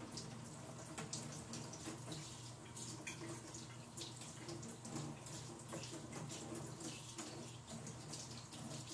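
Kitchen tap running at the sink while a knife is washed under it, a steady splashing hiss.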